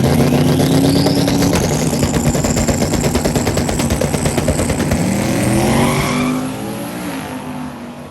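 Drag race car's engine at full throttle: revs climb with a rising turbo-like whistle, climb again a few seconds later, then the sound fades as the car pulls away down the track.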